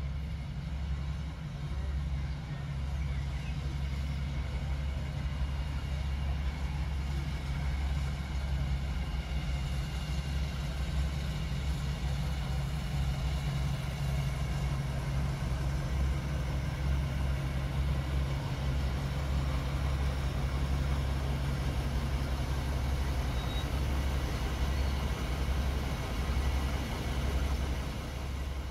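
Diesel locomotive engine running steadily with a low rumble, easing off slightly near the end.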